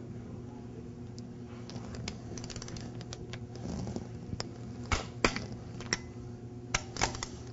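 Sharp metallic clicks of a torque wrench and its socket on steel bolts being torqued down, a few in quick succession about two-thirds of the way through and again near the end, over a steady low hum.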